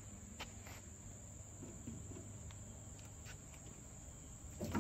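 Steady, high-pitched chirring of crickets or other insects, with a few faint clicks.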